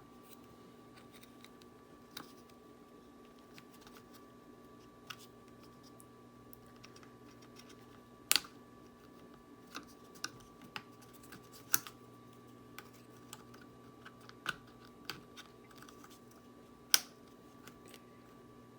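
Scattered light clicks and taps of small tools, screws and plastic parts being handled as a Robot-Coupe MP 600 mixer's covers are screwed back on, over a steady low hum. Three sharper clicks stand out, the last near the end.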